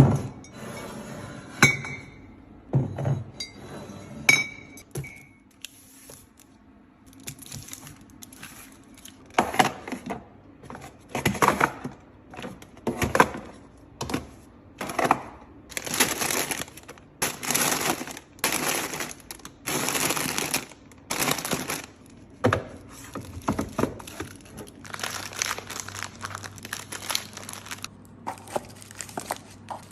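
Fridge restocking handling sounds: a few glass clinks with short ringing, then a long run of short rustling, crinkling noises about once a second as items are handled and set in place.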